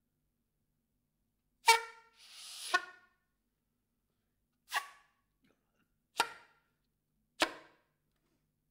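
Soprano saxophone playing isolated short, sharp percussive notes with silences between them, five in all. A breathy rush of air rises just before the second note.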